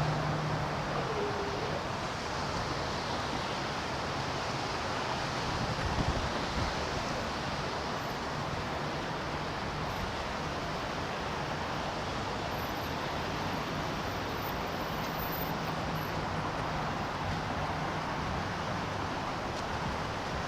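Steady outdoor street-traffic noise, with a low engine hum that is strongest at the start and a brief swell about six seconds in.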